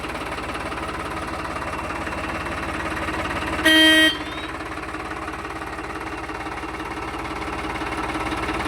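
Farmtrac 60 tractor's diesel engine idling steadily, with one short, loud horn blast about four seconds in.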